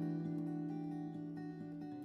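Background music on acoustic guitar: sustained plucked chords that change just at the end.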